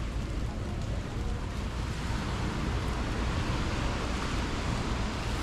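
Steady noise of heavy rain and wind, with gusts rumbling on the microphone.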